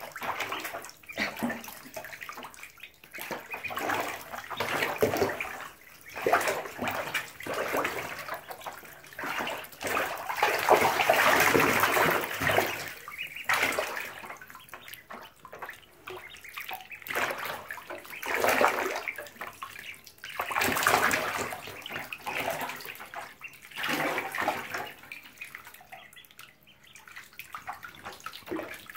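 Shallow bathtub water splashing and sloshing as a group of ducklings swim and paddle in it. It comes and goes in irregular swells a few seconds long, loudest a little before the middle.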